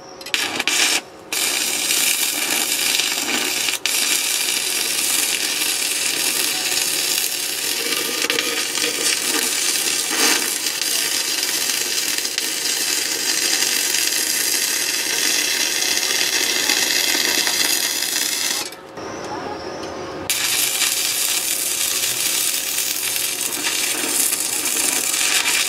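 Stick-welding arc from an inverter welder with a 2 mm Paton electrode at about 70 amps: a steady hissing arc. It catches after a couple of short strikes at the start, goes out for about a second and a half about two-thirds of the way through, then is struck again.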